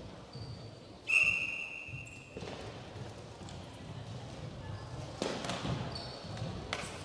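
A referee's whistle blown once, a steady shrill tone lasting just under a second, about a second in. Around it come the dull thumps of the cycle ball and bike wheels knocking on the wooden hall floor.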